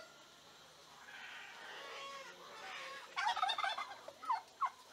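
Farmyard fowl calling: a brief rapid burst of calls about three seconds in, then two short rising calls.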